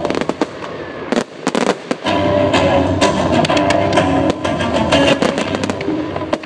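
Fireworks display: a rapid, dense run of bangs and crackles that thins to separate cracks for a moment about a second in, over loud show music.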